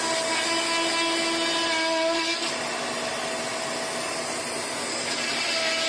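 Vacuum cleaner running with its hose nozzle held to a fresh cut in a plasterboard ceiling, sucking up the dust: a steady motor whine over the rush of air. A lower tone in the whine drops out about halfway and returns near the end.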